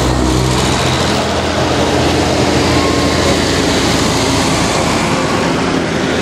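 Old farm tractors' engines running as they drive past close by, one after another, with a steady low engine note that is strongest at the start.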